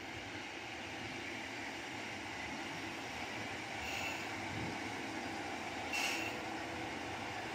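Mizushima Rinkai Railway MRT300 diesel railcar pulling into a station, its running noise slowly growing louder as it nears. Two brief high squeals from the braking train come about four and six seconds in, the second louder.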